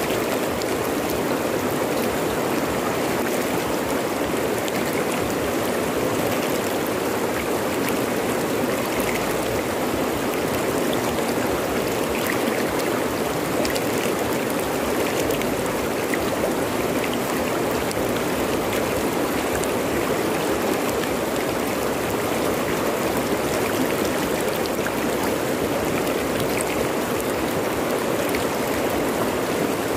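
Fast-flowing river rushing over rocks: a steady, even water noise with small splashes scattered throughout.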